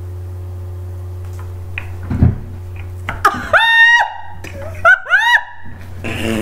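A steady low hum, then from about three seconds in a few loud, high-pitched squeals of a voice, each rising and then holding its pitch, like shrieks of laughter.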